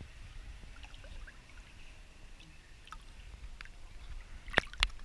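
Swimming pool water lapping and sloshing against a camera held at the waterline, with a couple of sharp splashes near the end.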